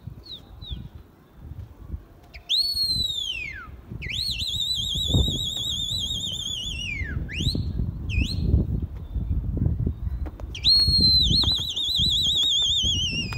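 Loud whistling by a person: a short rising-and-falling whistle about two and a half seconds in, then a long warbling whistle that drops in pitch at its end, two brief chirps, and a second long warbling whistle near the end. Wind and handling rumble lies underneath.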